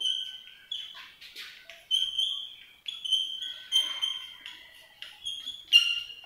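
Chalk writing on a blackboard: a run of short, high-pitched squeaks mixed with brief scratchy strokes, about two a second, the loudest squeak near the end.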